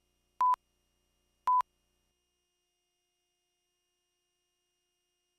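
Countdown-leader beeps: two short, pure, single-pitch beeps about a second apart, marking the numbers as a video countdown runs down.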